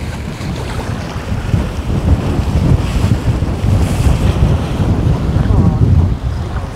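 Wind buffeting the microphone in an open boat: a loud, gusty low rumble, stronger from about two seconds in and easing near the end.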